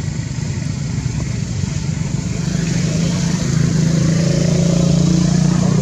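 A motor engine running steadily with a low hum, growing louder about halfway through.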